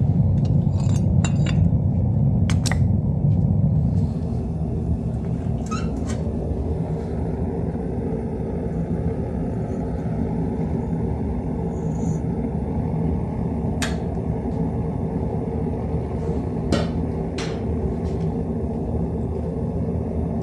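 Gas-fired melting furnace running with a steady low rumble, and a few sharp metal clinks as a steel tool is worked in the crucible of molten aluminum.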